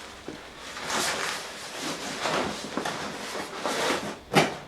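Scraping and rustling as a boiler's insulation cap is worked into place on top of the boiler, with one sharp knock near the end as it seats.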